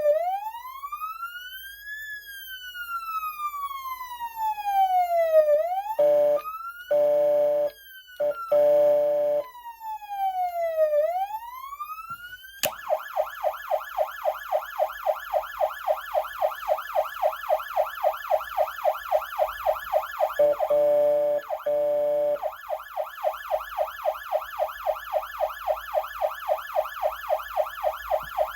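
Gall's Model 3050 electronic siren amplifier sounding through its speaker: a slow wail rising and falling, broken by several short steady horn blasts, then a quick switch to a fast yelp of about three or four sweeps a second, interrupted by two more horn blasts, before it cuts off suddenly.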